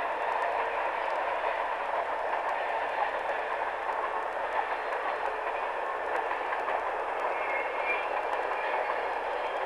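Freight train hauled by three EMD SD45-2 diesel locomotives running past at a distance: a steady, even wash of locomotive engines and wheels on the rails, with no horn.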